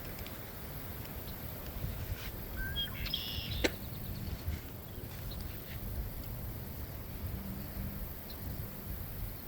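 Wind buffeting the microphone with a gusty low rumble. A bird chirps briefly about three seconds in, followed by a single sharp click.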